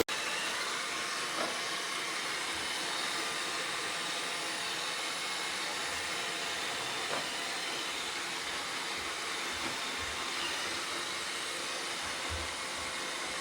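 iRobot Roomba Combo robot vacuum running steadily: an even hiss-like noise from its suction and brushes, with a couple of faint ticks.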